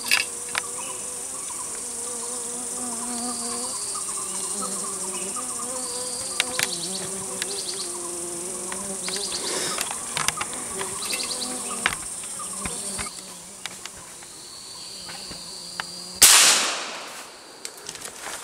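Insects buzzing in a high, steady drone in a bamboo forest, with scattered small clicks; the buzz stops about two-thirds of the way through. Near the end a sudden loud burst of noise dies away over about a second.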